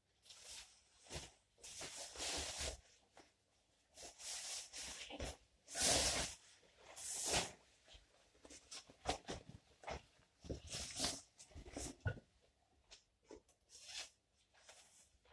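Rustling of cycling jackets as they are handled and taken off: irregular swishes of fabric, some a second or two long, one after another.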